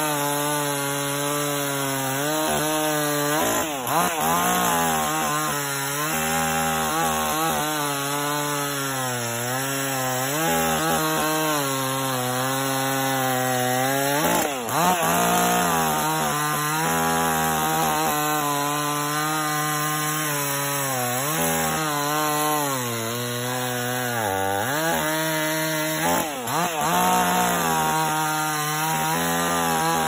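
58cc two-stroke petrol chainsaw running under load as it cuts rounds off a log, its engine pitch wavering as the chain bites into the wood, with a few quick dips and rises in pitch.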